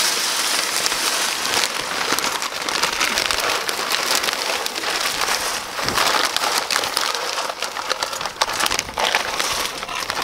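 Hickory wood pellets pouring from a plastic sack into a pellet smoker's hopper: a steady, dense rattling patter of pellets, with the plastic sack rustling as it is handled.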